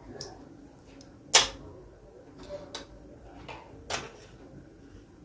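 Small fruit-shaped magnets clicking onto a fridge door: two sharp clicks about two and a half seconds apart, with a few fainter taps between.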